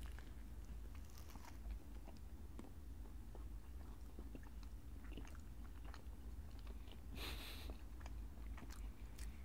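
Faint chewing and mouth sounds of people eating a chaffle spread with liverwurst and cream cheese: soft scattered clicks and crunches, with a brief hiss of breath about seven seconds in.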